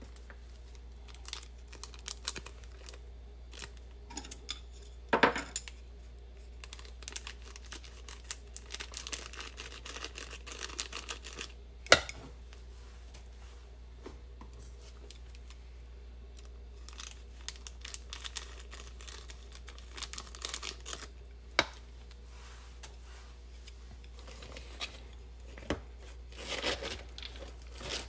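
A small plastic topping packet being torn open and crinkled, with scattered light taps and clicks and one sharp click about halfway through. Near the end, wooden chopsticks stir batter and cabbage in a disposable cup.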